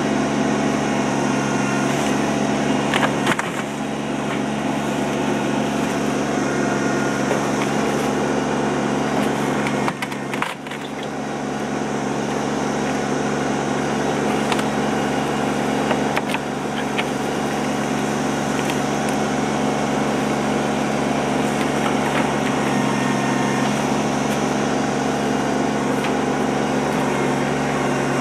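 Kubota mini excavator's diesel engine running steadily under hydraulic load while its bucket rips apart old wooden boards, with sharp wood cracks and knocks every few seconds. The engine note dips briefly about ten seconds in.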